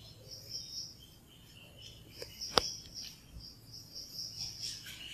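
Chalk writing on a blackboard: high, scratchy squeaks in short strokes that start and stop, with one sharp tap of the chalk against the board about halfway through.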